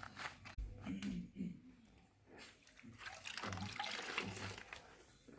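Wet Scrub Mommy sponge being squeezed in several short squeezes, soapy water squelching and dripping out of the foam.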